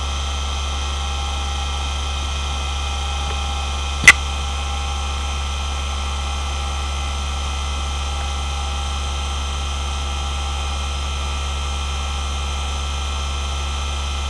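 Hitachi DK228A-65 three-platter 2.5-inch hard drive spinning at idle: a steady low hum with a thin high whine over it. One sharp click about four seconds in.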